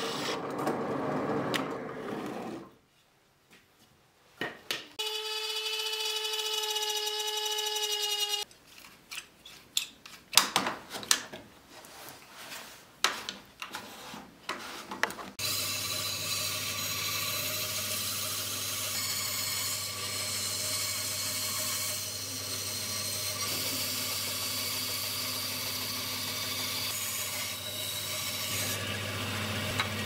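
Drill press with a hole saw cutting into plywood for the first few seconds. After a pause comes a steady whine, then a run of knocks and clicks. From about halfway on, a bandsaw runs steadily with a low hum, cutting a plywood ring.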